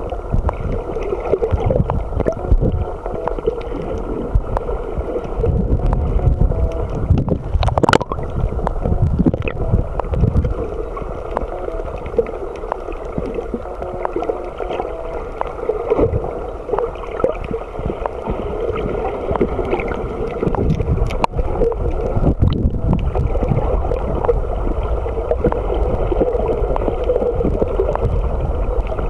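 Muffled underwater noise picked up by a camera in a waterproof case: water sloshing and gurgling around the case, with a couple of sharp clicks.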